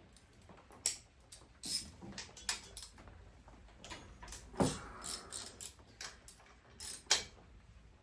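Scattered metallic clicks and clinks of hand tools: a ratchet with a half-inch socket working on the bolts of a V-twin motorcycle engine's top end.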